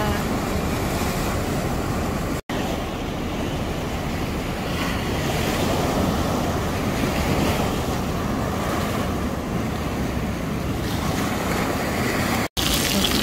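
Rough sea surf breaking and washing against a concrete seawall: a steady rush of waves. The sound cuts out for an instant twice, about two and a half seconds in and near the end.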